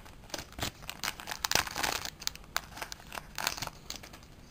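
A trading-card booster pack wrapper crinkling and being torn open, an irregular run of sharp crackles and rustles.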